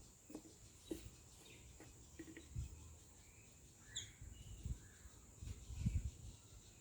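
Soft low knocks and light clicks from handling a plastic oil feeder bottle at a generator's oil filler, the loudest knocks near the end, over faint outdoor background with a few short high chirps.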